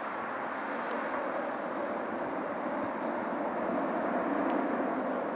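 Jet engines of a twin-engine airliner rolling out on the runway just after landing: a steady rushing roar that swells slightly about four seconds in.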